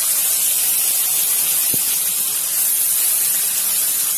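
Finely chopped onion frying in hot mustard oil in a kadhai, sizzling as a loud, steady hiss.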